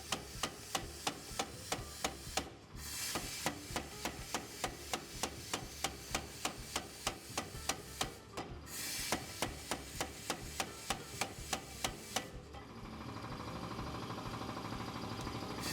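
Hammer blows forging a W2 steel knife blank, in a fast, even rhythm of about three strikes a second with two brief pauses. The strikes stop about twelve seconds in and a steady noise takes over.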